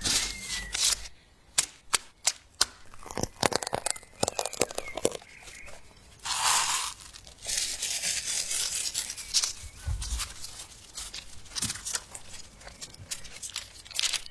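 Parchment paper rustling and crinkling under hand-handled chocolate crepes, with scattered sharp taps and clicks in the first few seconds and longer stretches of rustling later as the crepes are rolled up in the paper.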